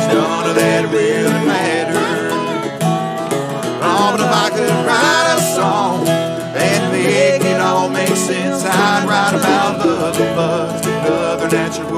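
Acoustic bluegrass band playing: acoustic guitar, mandolin, fiddle and dobro together, with a wavering, sliding lead line over steady strummed chords.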